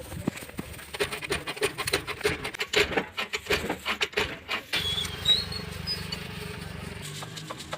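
Irregular clinks and taps of hand tools on metal as the kick-starter side of a motorcycle engine is opened up. About five seconds in a steady low hum sets in, with a few short high chirps.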